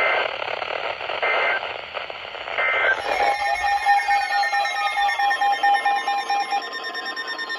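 Three short bursts of Emergency Alert System digital data, the end-of-message code warbling between two high tones, about a second and a half apart, heard over radio static. About three seconds in the static cuts off and layered electronic beeping takes over: a pulsing mid tone with steady and slowly falling higher tones.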